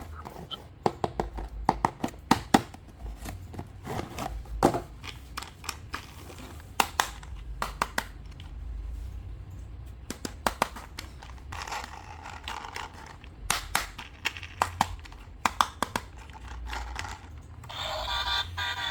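Toys and their packaging being handled during unboxing: irregular sharp clicks and knocks with scraping in between.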